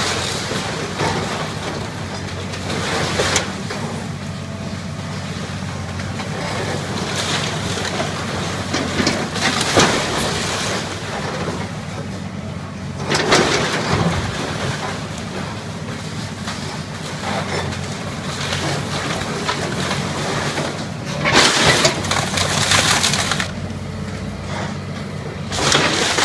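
Tracked excavator's diesel engine running steadily as its bucket tears into a wood-frame building, with several loud crashes of splintering timber and falling debris.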